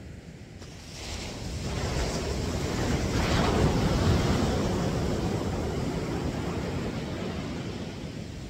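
Ocean waves breaking on a sandy beach: the surf swells about a second in, is loudest a few seconds later, then eases off as the wash recedes.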